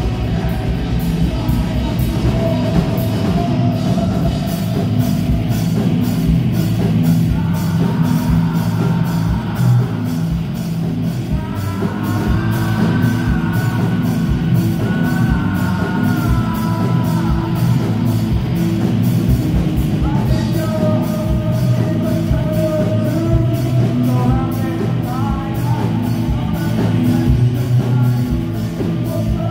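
Live rock band playing: electric guitars over bass and drums keeping a steady beat, with a singer's voice carrying the melody.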